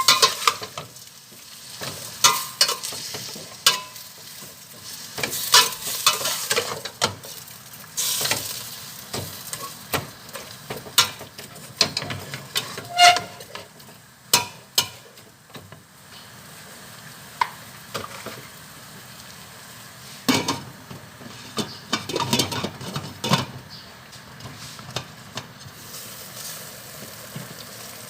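Food sizzling and frying in a pan while a utensil stirs it, scraping and clinking against the pan every second or two.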